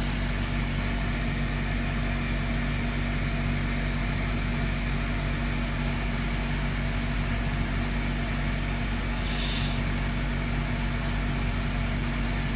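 Steady low machine hum made of several steady low tones, with a brief hiss about nine seconds in.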